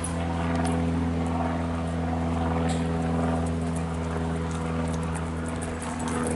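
Steady low mechanical hum from a running motor, even in pitch throughout, with faint light ticks over it.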